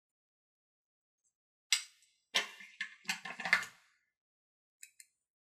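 Lipstick tube handled in the fingers: a sharp click, then a second and a half of clicks and rubbing, and two faint ticks near the end.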